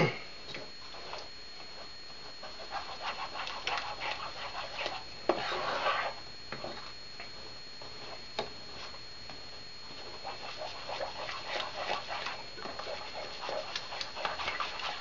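A spoon stirring thick barbecue sauce in a pot, scraping and clicking against the pan in irregular bouts.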